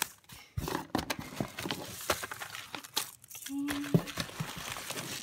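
Packing shred and gift wrapping rustling and crinkling as wrapped presents are lifted out of a mailed box, a run of short crackles and rustles. A brief low hum about three and a half seconds in.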